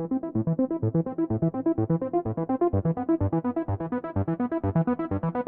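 Background music: fast, even synthesizer arpeggio with a bass line.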